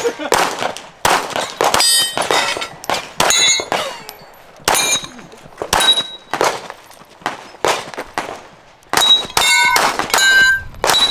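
Rapid gunshots, each followed by the clang and ring of a steel target plate being hit. The shots come in quick strings with short pauses between them.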